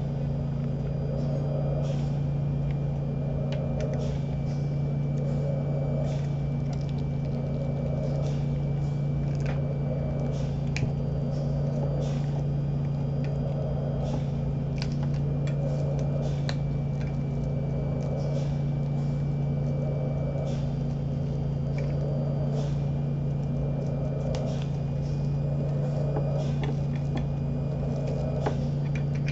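A home mechanical ventilator running with a steady hum and a soft whoosh of air repeating about every two seconds as it delivers breaths. Over it come scattered crinkles and clicks of plastic packaging being handled.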